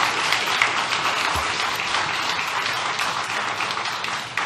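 Audience applauding, a dense steady patter of many hands clapping that eases slightly near the end.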